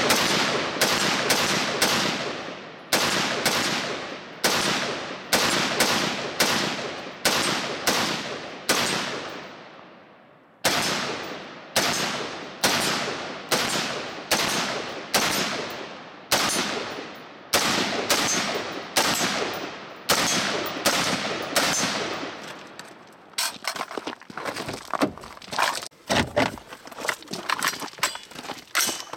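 HM Defense HM15 CommanderMB5 AR-15 rifle fired semi-automatically in a steady string, about two shots a second, each shot ringing off. The string pauses briefly about ten seconds in and then resumes. Near the end the shooting gives way to quieter clicks and rattles as the rifle and its magazine are handled.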